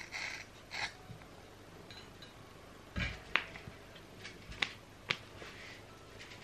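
Scissors cutting hair: a few short snips in the first second, then a thump about three seconds in and three sharp clicks.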